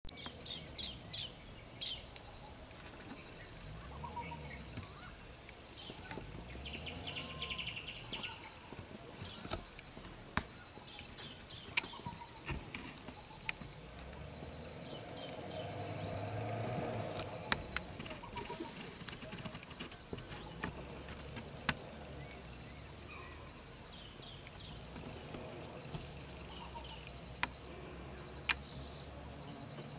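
Steady, high-pitched insect chorus shrilling without a break, with short chirps over it early on and a few sharp clicks. A low hum swells briefly around the middle.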